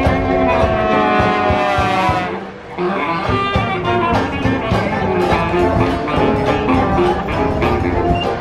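Brass band jazz: horns play long held notes, then after a short dip about two and a half seconds in, a rhythmic tune over a steady low beat.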